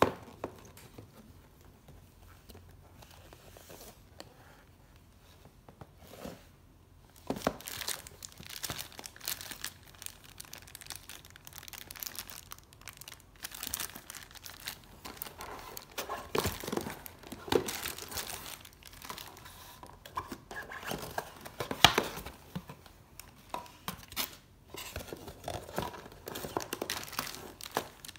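Clear plastic bag crinkling as it is handled around a boxed model car, with cardboard box handling. It starts after a quiet stretch of several seconds, comes in irregular crackles, and has one sharper, louder crackle a little past the middle.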